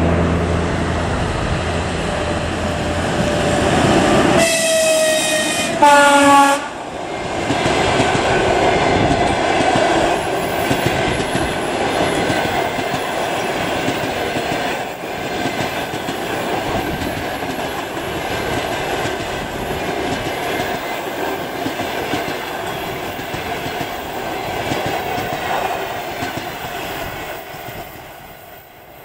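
ChS4 electric locomotive sounding its two-tone horn about four seconds in: a higher note for about a second and a half, then a short lower note. Then its train of passenger coaches rolls past with a steady rumble and the clickety-clack of wheels over rail joints, fading near the end.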